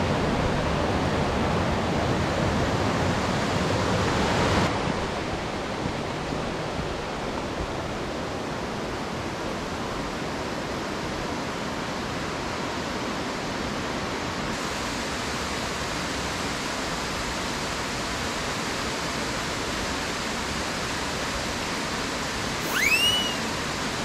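A fast-flowing mountain stream rushing over rocks: a steady, even rush of water, a little louder for the first few seconds, then slightly quieter. A brief high chirp near the end.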